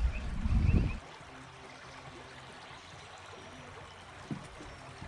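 Water trickling steadily, with a faint low hum under it; a loud low rumble fills about the first second before it drops away.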